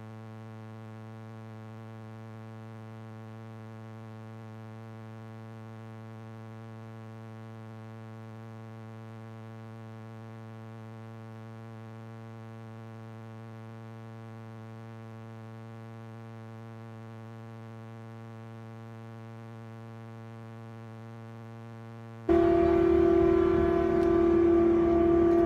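A steady, unchanging low hum held at one pitch. Near the end it cuts off abruptly into much louder machinery engine noise.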